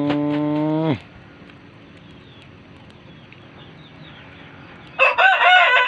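A rooster crows loudly near the end, a call that rises and falls in repeated arches. Before it, a held musical tone slides down in pitch and stops about a second in, leaving only faint background hiss.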